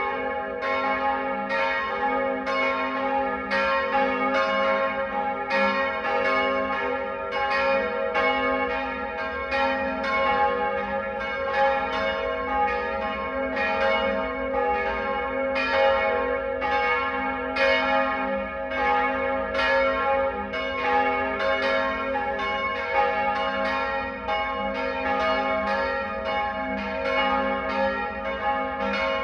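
Peal of church bells swinging and ringing together, strokes coming several times a second in an uneven, overlapping pattern over a continuous ringing hum.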